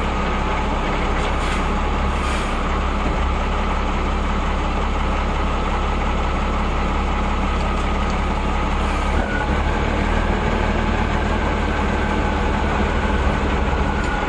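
Reo M35 army truck's engine running steadily at an even pitch, loud and constant, with a slight change in its low note about nine seconds in.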